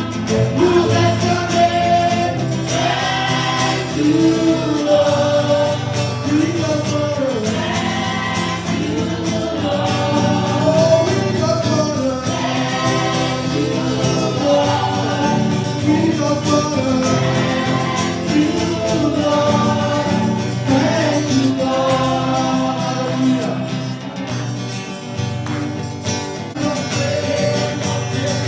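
Gospel choir singing with instrumental accompaniment, a steady loud worship song.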